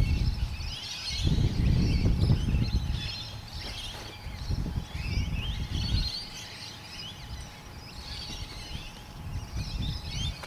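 Birds chirping and calling, with a low rumble of wind buffeting the microphone that gusts over the first six seconds and then dies away.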